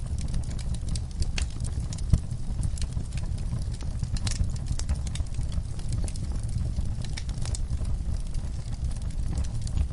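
Logs burning in a fireplace: a steady low rumble of flame with frequent sharp crackles and pops, one louder pop about two seconds in.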